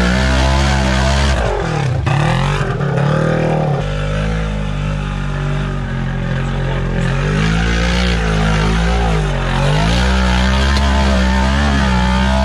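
Polaris RZR XP 1000's parallel-twin engine revving up and down under load as the machine crawls up a steep, rocky hill rut. About two seconds in, the pitch drops sharply and climbs back.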